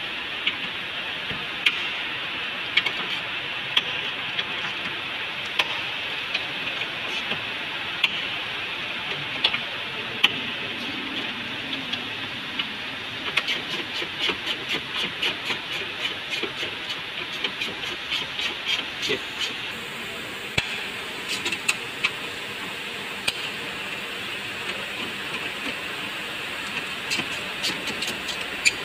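Hand tool clicking against metal as bolts on a car's AC condenser mounting are worked loose. The clicks come singly, with a quicker run of about three a second in the middle, over a steady hiss.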